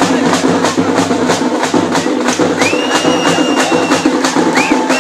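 Fast, steady drumbeat of about four beats a second, with a long high whistle held for over a second midway and a short rising whistle near the end.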